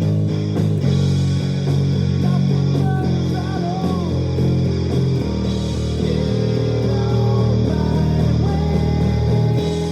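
Luxars S-KB20 travel-size electric bass played in a rock style, as part of music. It holds low notes that change about every second, with sliding higher notes above them.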